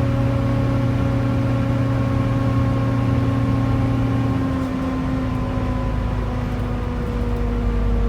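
Volvo B7TL double-decker bus's 'hoover', the loud whine of its engine cooling fan, heard from the back seat over the low rumble of the bus. The whine is steady at first, with several tones, then slowly drops in pitch over the second half.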